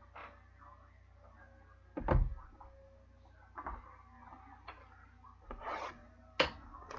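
Scattered knocks and short rustles of trading cards and cardboard boxes being handled on a table, with the loudest thump about two seconds in and a sharp knock near the end.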